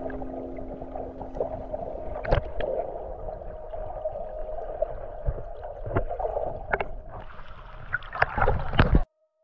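Underwater sound picked up by a GoPro: muffled water movement with a faint steady tone and several sharp clicks and knocks. About seven seconds in, the camera breaks the surface and splashing water takes over, then the sound cuts off abruptly.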